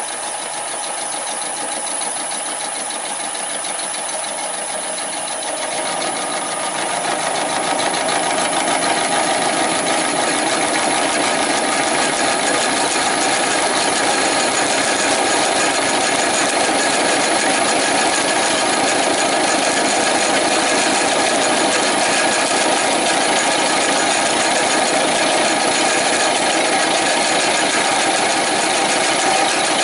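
Milling machine running with its end mill cutting the profile of a crank web held on a rotary table; the cutting noise gets louder about six seconds in and then holds steady.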